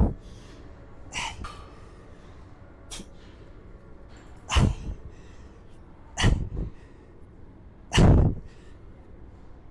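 A man's sharp, forceful breaths blown out as he strains through lifting reps, several short blasts about one to two seconds apart, the three loudest in the second half, hitting a clip-on microphone close to his mouth.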